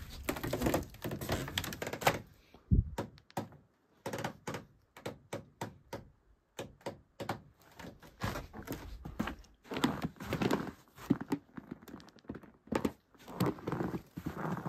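A run of irregular knocks and clicks, several close together, broken twice by brief silences.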